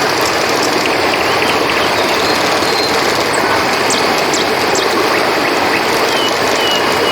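Steady rush of a flowing river, with short high chirps now and then over it.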